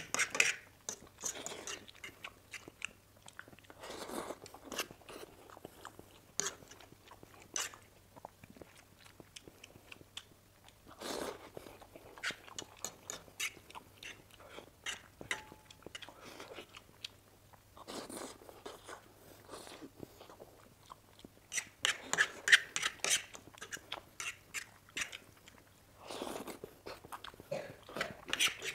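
A person eating masala Maggi instant noodles with a fork: irregular slurps and wet chewing, with a few sharp clicks of the fork against the plate between mouthfuls.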